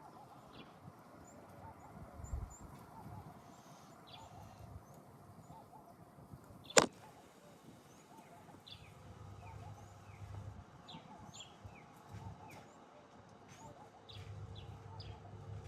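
Small birds chirping, with many short, high, scattered calls. There is one sharp click about halfway through, and a low hum comes in later.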